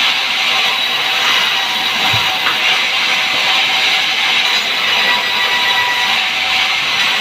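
Sawmill saw running steadily: a constant high-pitched hiss with a faint whine.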